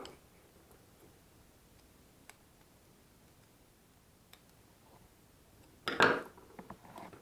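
Small handling noises from work on an electrical plug: a click at the start, a couple of faint ticks, then a louder run of clicks and clatter about six seconds in.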